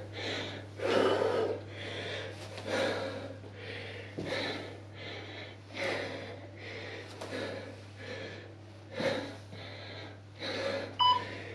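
A man breathing hard and fast through a strenuous bodyweight lunge set, one sharp exhale every second or less, over a steady low hum. A short electronic beep sounds near the end.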